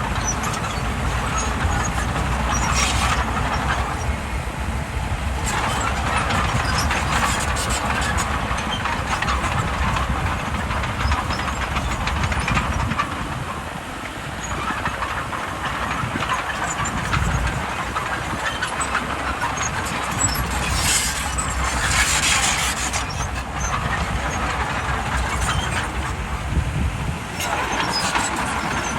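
Bulldozer working: its diesel engine runs steadily under load while its steel tracks clatter and clank, the clatter swelling several times as the machine moves.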